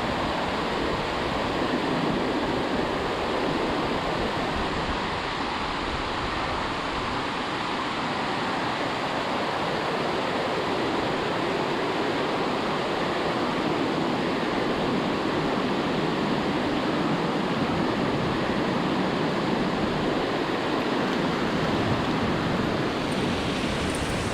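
Creek water rushing steadily, an even noise that does not change.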